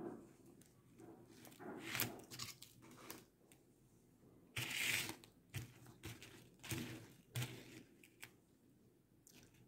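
Soft, scattered clicks of coral beads knocking together and nylon fishing line rustling as hands thread beads, with one louder half-second rustle about five seconds in.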